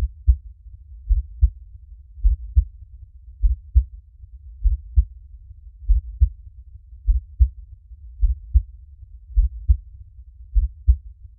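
Heartbeat: steady, slow double thumps (lub-dub), about fifty beats a minute, deep and low, over a faint low rumble between beats.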